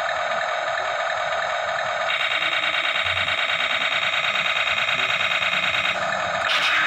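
Remote-control toy tank playing electronic sound effects through its small speaker: a buzzy, rapidly pulsing noise that turns harsher and brighter about two seconds in and changes again near the end.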